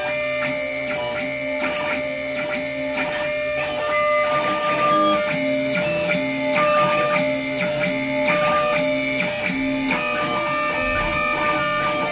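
CNC engraving machine running a job: its stepper motors sound short steady pitched tones that start and stop every fraction of a second as the axes move, over a steady tone that runs unbroken underneath.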